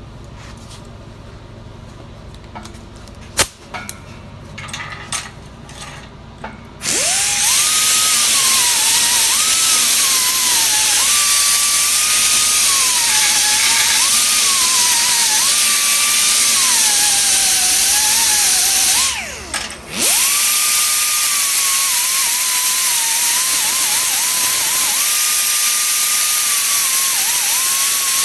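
A handheld grinder grinding down the weld on a cracked cast-aluminum air blow gun, its whine dipping and rising as it bites into the metal. It starts about seven seconds in after some light handling clicks, stops for about a second partway through, then runs again and cuts off at the end.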